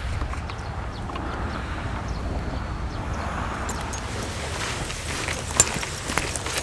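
Wind rumbling on the microphone over sea water, with scattered light clicks and knocks starting about four seconds in and one sharper click near the end.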